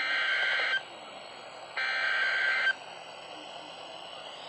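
NOAA Weather Radio sending Emergency Alert System SAME header data: two harsh, buzzing digital tone bursts, each just under a second and about a second apart, with radio hiss between them. This data header opens a new EAS warning broadcast.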